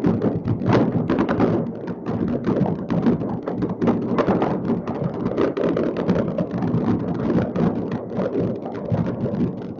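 Many fireworks going off at once across a city: a dense, continuous patter of distant bangs and crackles over a low rumble of booms.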